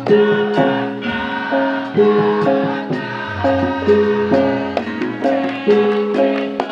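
Live Javanese gamelan music: pitched metallophone notes ring out in a steady melodic pattern, with sharp drum strokes over them.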